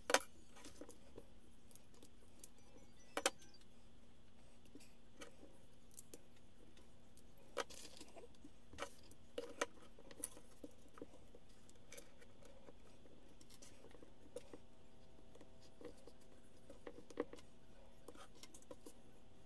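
Plastic Lego bricks clicking and rattling on a wooden tabletop as pieces are picked from a loose pile and pressed onto a model car. The clicks are scattered and sharp, and the loudest comes right at the start.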